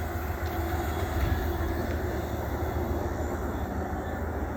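Amtrak passenger train moving away after passing, a steady low rumble that slowly fades.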